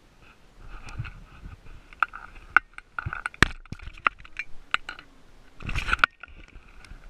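Irregular sharp clicks and knocks from a handheld camera being jostled and handled, with a brief rustling scrape about six seconds in. A faint, steady high whine runs underneath.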